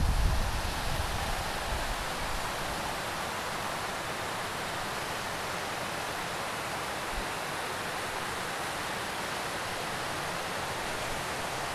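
Mountain stream rushing over rocks in small cascades: a steady, even hiss of water. A brief low buffeting right at the start, like wind on the microphone.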